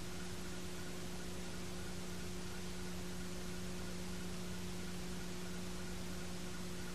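Steady hiss with a constant electrical hum: the noise floor of an old videotape transfer, with no game sound to be heard.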